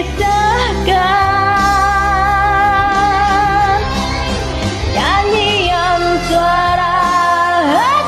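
A woman singing over a karaoke backing track, holding two long notes with vibrato, the first through most of the first four seconds and the second near the end.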